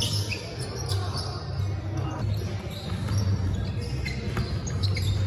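Basketball bouncing on a hardwood gym floor during a pickup game, with short high squeaks from sneakers scattered through it, in the echo of a large hall over a steady low hum.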